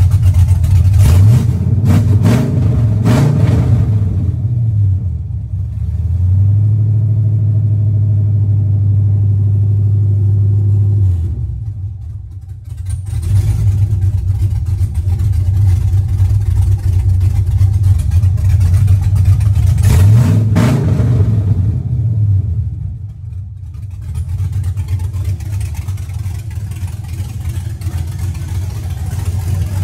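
LS-swapped V8 engine idling at about 650 rpm, blipped a few times near the start and once more about two-thirds of the way through.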